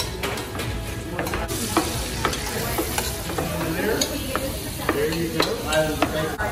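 A metal spoon stirring and scraping food in a stainless steel pan as it fries and sizzles, with irregular clinks of the utensil against the pan.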